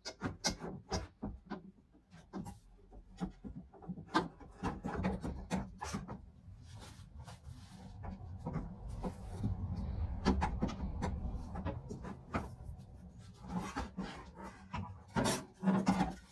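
Clicking, knocking and scraping of a car door's window regulator (metal rails, plastic pulleys, cables and motor) being worked loose inside the door frame and pulled out, with a stretch of steady rubbing partway through and a few louder knocks near the end as the assembly comes free.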